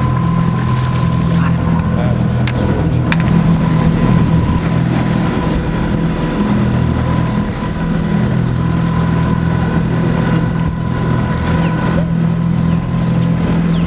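Outboard motor on an aluminium fishing boat running steadily, a constant low drone with a faint higher whine over it.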